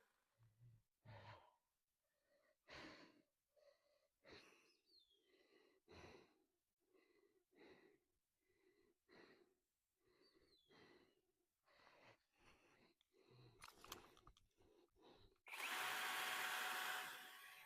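Soft scattered rustles and knocks, then near the end a cordless power saw runs steadily for about two seconds and stops.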